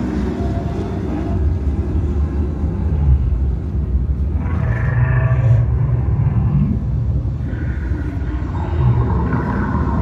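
Recorded deep-ocean soundscape played over loudspeakers: a steady low underwater rumble with drawn-out calls of sea creatures rising over it about halfway through and again near the end.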